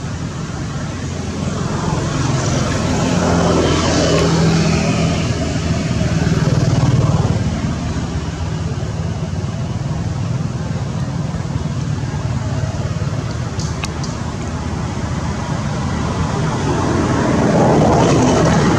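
Road traffic passing: the rush of vehicles over a low engine hum, swelling and fading twice, about four seconds in and again near the end.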